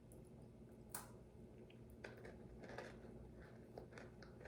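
Near silence with faint handling clicks: one sharper click about a second in, then a few soft ticks.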